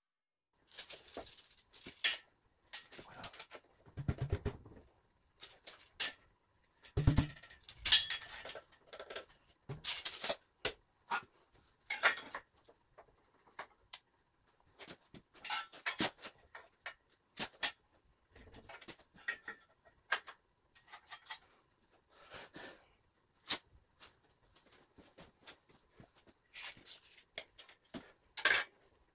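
Scattered clicks, taps and light metallic knocks from handling rusty rectangular steel tubing with a tape measure and marking tools, with two heavier clunks about four and seven seconds in. A faint steady high hiss runs underneath.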